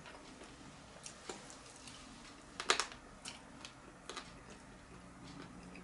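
Eating a jerk chicken wing by hand: faint scattered clicks and crunches of chewing, with a louder cluster of clicks about halfway through.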